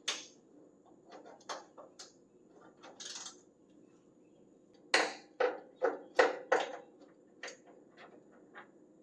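Metal hand tools clinking and knocking against a bolt on an old pickup truck's body, with light clicks and a brief scrape, then a run of about five loud metallic clacks between five and six and a half seconds in.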